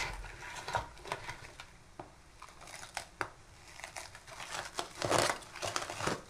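Plastic cling film crinkling as it is handled and peeled back off a plastic mixing bowl, in scattered crackles that are loudest about five seconds in.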